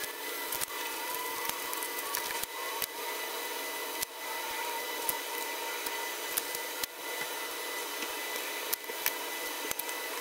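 A steady fan-like whir with a faint whine in it, and scattered light clicks and taps of small parts being handled on a workbench.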